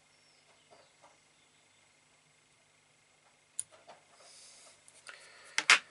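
Fine fly-tying scissors snipping off excess feather fibres: one sharp click a little past halfway, then a few faint ticks and a brief rustle. Near the end come two louder sharp knocks, the loudest sounds here.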